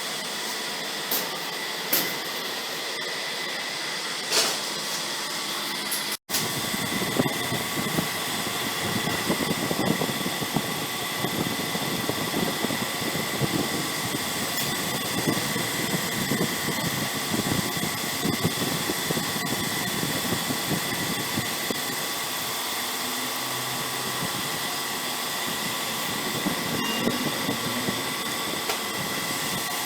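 CNC laser cutting machine running: a steady hiss with a high whine over it, blower- or fan-like. It drops out for an instant about six seconds in, after which a busier, lower rumble joins.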